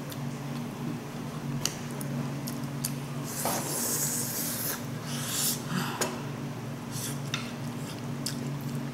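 Eating at a table: a metal spoon clicking against bowls several times, and a brief hissy slurp near the middle as sauce is sucked off fingers, over a steady low room hum.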